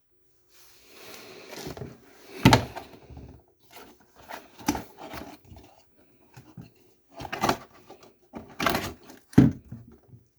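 Hard objects being handled and set down: a series of sharp knocks and clatters with brief ringing, the loudest about two and a half seconds in and again near the end, over a faint steady hum.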